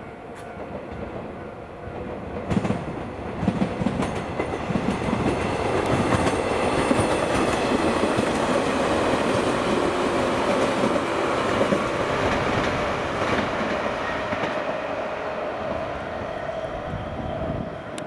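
JR 115-series electric train passing close by over a level crossing, its wheels clattering over the rail joints. The sound builds over the first few seconds, is loudest in the middle and eases toward the end.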